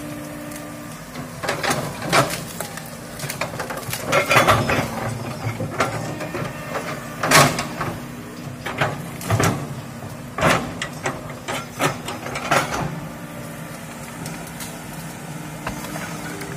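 Komatsu crawler excavator's diesel engine running steadily while its bucket rips out roots and brush: a rapid series of sharp cracks, snaps and knocks of breaking wood and scraping from about a second and a half in until near the end, the loudest crack about halfway through.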